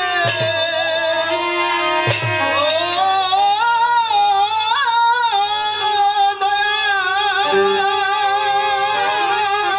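Slow background music: a held, wavering melody line over a steady low drone.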